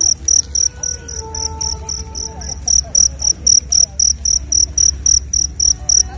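A cricket chirping loudly at a steady rhythm: short high-pitched chirps, about four a second.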